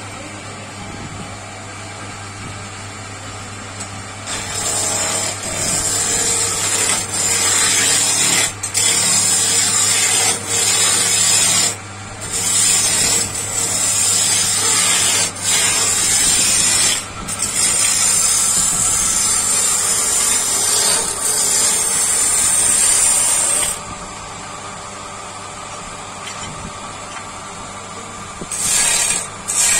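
A power tool working a piece, with a steady low motor hum throughout. From about four seconds in to about twenty-four seconds comes a long stretch of harsh hissing, broken by short pauses, and a few brief hisses come near the end.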